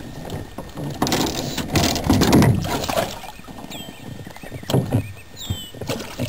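Water splashing and sloshing at the side of an aluminum fishing boat as a hooked bass is landed by hand, loudest a couple of seconds in, with a few knocks against the hull.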